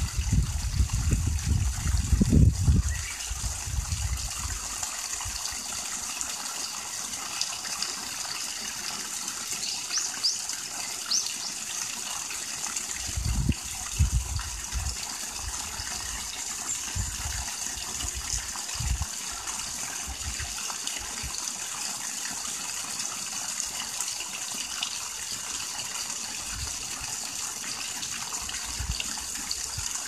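Water spouting from a pipe outlet and splashing onto rocks into a small pool: a steady, even gush. A few low rumbling thumps come in the first three seconds and again about halfway through.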